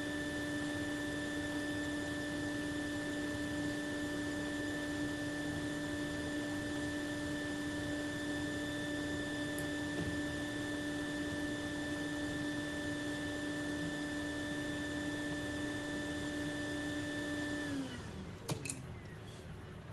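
Small electric motor running at a steady speed with a whine and a hiss of air. It is switched off near the end and spins down, its pitch falling, followed by a couple of sharp clicks.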